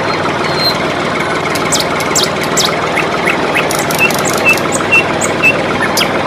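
Toy tractor's small motor and plastic drivetrain running steadily as it drives across sand. Birds chirp over it, including four short calls about half a second apart near the middle.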